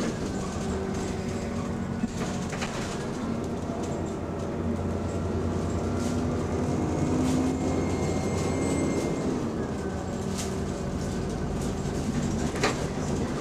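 Cabin sound of the GAL E266 bus under way: its engine and cooling fan running with a steady hum that shifts a little in pitch, a thin whine that comes and goes, and a few sharp clicks.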